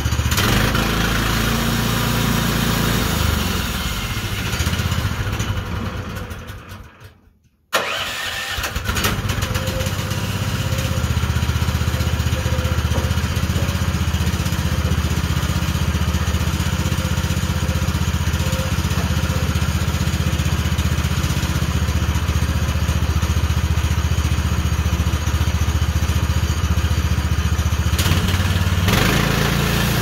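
15 hp petrol engine of a Forestwest 26-inch bandsaw sawmill running steadily. About five seconds in its sound fades away to silence, then comes back abruptly a couple of seconds later and runs on evenly.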